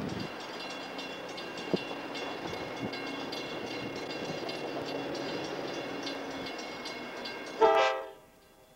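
Horn of an approaching locomotive: a long, steady chord over wind noise on the microphone. About three quarters of the way in comes a short, much louder blast, and then the sound drops away suddenly.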